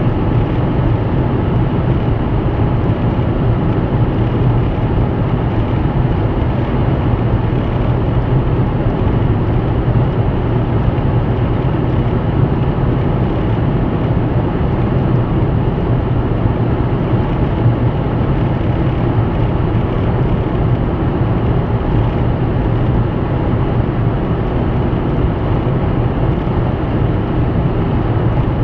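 Steady in-cabin noise of a car cruising at highway speed: tyre and road rumble with a low engine drone, holding even.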